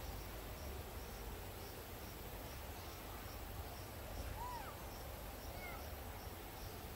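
Forest background of insects chirping steadily, about two faint pulses a second, over a low rumble. Around four and a half seconds in, two or three short high calls sweep up and down.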